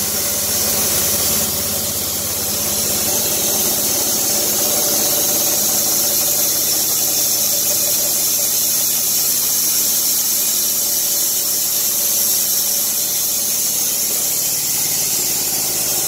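Small petrol engine of a Dack SMP 13/85 portable bandsaw mill running steadily while its drive belt is slackened and the band blade winds down. The deep part of the sound eases about two seconds in.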